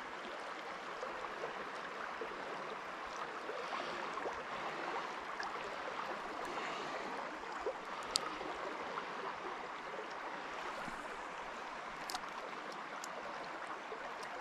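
Small river running, a steady rush of flowing water, with a few faint sharp clicks near the middle and later on.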